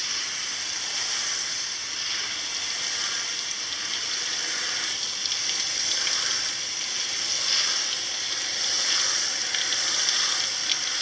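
Garden hose spray at raised pressure, rinsing a reusable electrostatic HVAC air filter as the jet is swept up and down and side to side: a steady, hissing rush of water that swells and dips slightly as the spray moves across the filter.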